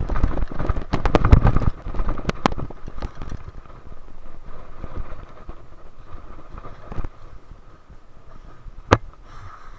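Wind buffeting the microphone, with a rapid cluster of clicks and knocks in the first couple of seconds and one sharp click near the end.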